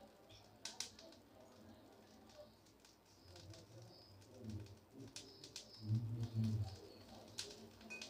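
Faint, scattered crackles and pops of ring-type dried vathal (rice fryums) puffing up in hot salt in an iron kadai, with a spatula scraping through the salt.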